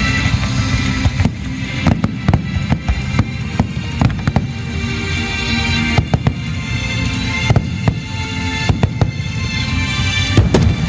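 Fireworks bursting in a rapid, irregular series of sharp bangs and cracks over sustained music.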